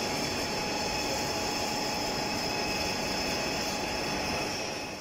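Steady machinery noise of a foundry floor: a continuous drone with thin steady whining tones on top, fading out just before the end.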